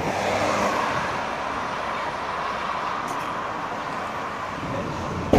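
Road traffic noise, with a vehicle passing close by in the first second or so. A single sharp knock near the end.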